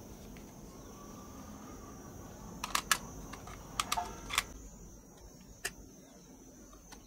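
Plastic clicks from a Retekess TR606 portable cassette player as its cassette door is opened and the tape taken out: two sharp clicks a little under three seconds in, a cluster of clicks and rattles around four seconds, and one last click near the end.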